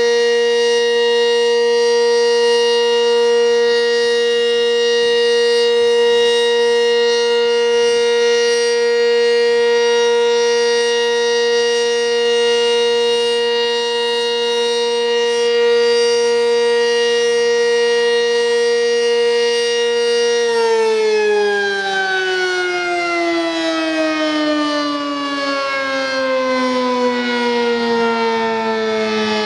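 Sentry 20V2T dual-tone outdoor warning siren sounding a steady, loud chord at full speed. About two-thirds of the way through its pitch starts falling smoothly as the siren winds down at the end of its test run.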